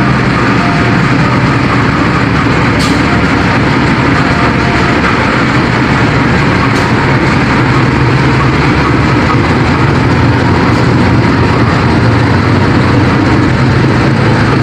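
Diesel locomotive engine running steadily at close range, a low even drone, with two short clicks about three and seven seconds in.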